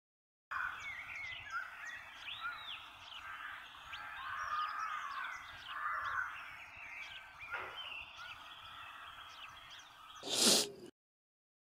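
Several small birds chirping and calling over a faint outdoor background, starting about half a second in. Near the end a brief, louder burst of noise cuts in, and then the sound stops abruptly.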